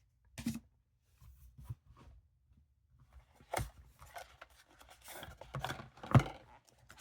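Knives and their packaging handled on a table: rustling with a few sharp clicks and knocks, the loudest knock about six seconds in.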